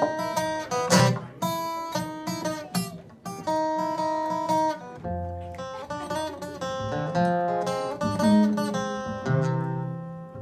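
Acoustic guitar playing the opening of a blues tune: struck chords at first, then picked single notes over low bass notes, growing quieter toward the end.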